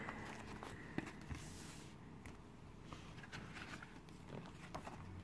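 A few faint taps and light rustles from hands handling a small cardboard board-game box and lifting its paper rulebook out.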